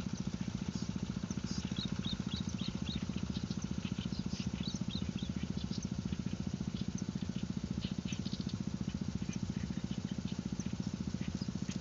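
A steady low engine hum with a fast, even pulse, like a small engine running at a constant speed, with short high bird chirps scattered over it.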